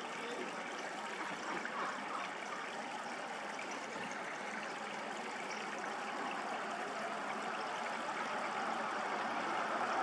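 Steady rushing outdoor background noise, with no distinct events, growing slightly louder near the end.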